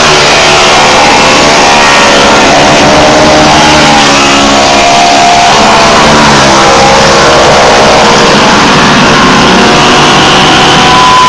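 Dirt-track race cars running flat out around the oval, loud enough to overload the recording. Several engines overlap, their pitch rising and falling as the cars come past and go away, with one car passing close about six seconds in.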